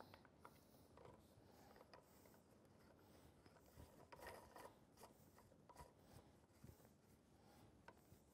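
Faint clicks and rubbing of a plastic nut being screwed by hand onto the threaded plastic check-valve fitting of a proportional dosing pump, with a small flurry of clicks about halfway through.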